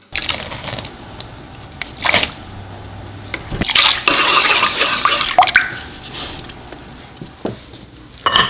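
Water splashing and sloshing as cooked thin noodles are rinsed by hand in cold water in a large bowl, loudest in the middle, with occasional clinks and drips.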